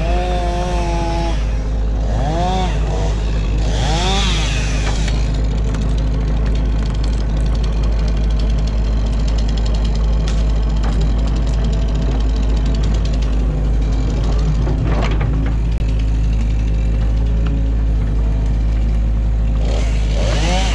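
Excavator's diesel engine running steadily, with short rising-and-falling whines breaking in a few times.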